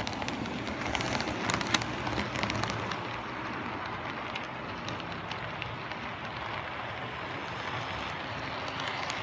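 Model train running past close by: a steady rolling rattle of its wheels on the track, with sharp clicks that are loudest in the first couple of seconds as the locomotives go by, then evening out as the container cars follow.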